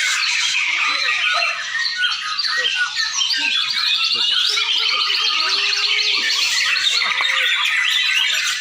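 Several white-rumped shamas singing at once in competition, a dense, unbroken tangle of fast, varied phrases and chattering notes.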